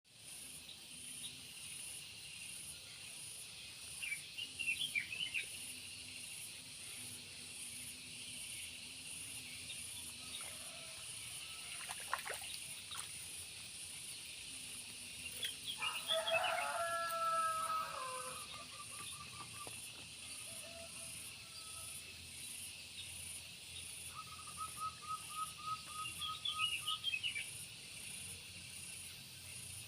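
A rooster crows once about midway, and birds chirp briefly now and then. One bird gives a quick run of short repeated notes near the end, all over a steady high-pitched hiss.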